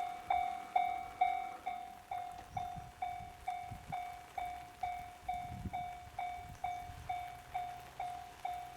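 Japanese railway level-crossing alarm ringing its electronic bell tone, struck about twice a second. Under it, from about two and a half seconds in, comes the low rumble of a train passing over the crossing.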